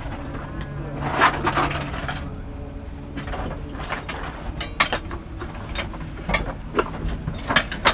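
Scattered clicks and knocks of hands handling equipment in a race car's cockpit, over a low steady hum.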